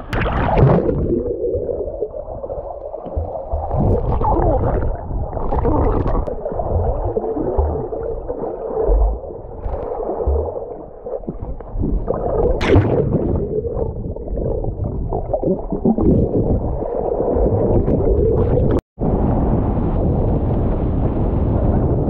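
River water heard underwater through a submerged camera: muffled gurgling and churning, with a few dull thumps. About three seconds before the end it cuts to open-air splashing of a swimmer thrashing through the water.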